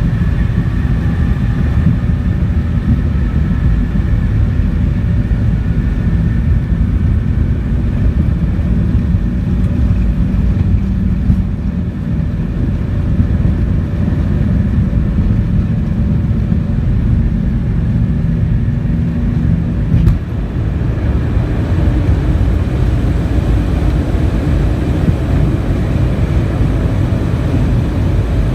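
Jet airliner engines at takeoff power heard from inside the cabin: a loud, steady rumble, with faint high engine tones that fade after a few seconds. The low rumble changes character about two-thirds of the way through.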